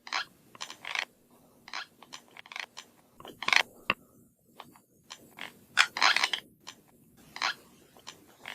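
Teeth grinding (bruxism): irregular short scraping, crunching strokes, some brief and some about half a second long, with silent gaps between them.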